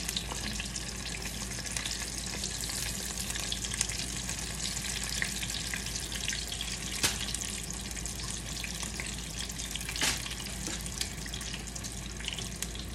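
Vegan chicken nuggets frying in hot oil: a steady sizzle full of small crackles, with two sharper pops about seven and ten seconds in.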